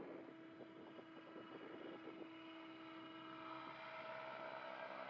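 Radio-controlled 3D helicopter heard from a distance: a faint, steady hum from its motor and rotors that grows slowly louder toward the end.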